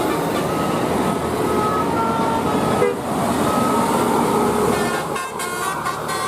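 A bus's Basuri telolet musical horn playing a tune of short notes at changing pitches, over dense traffic noise. About five seconds in the noise drops away and the horn notes come through clearer and fuller.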